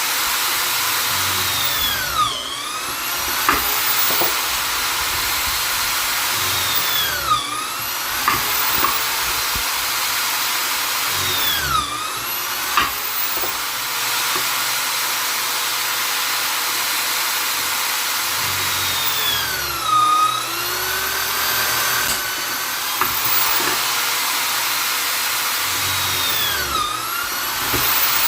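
Vonder electric drill/driver running continuously with a high motor whine. About five times the pitch dips and swings back up over a second or so, as the motor slows under load and recovers.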